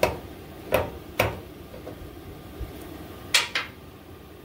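Sharp metal-on-metal clanks as a steel track bar's rod end is knocked against its clevis mount while being fitted: three knocks in the first second and a bit, then two close together about three seconds in.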